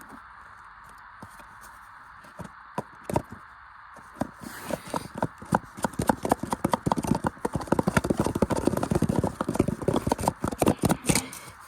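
Washing machine running with a steady whir, then a rapid clattering and knocking that starts about four seconds in and grows faster and louder, like loose parts banging as the drum spins up.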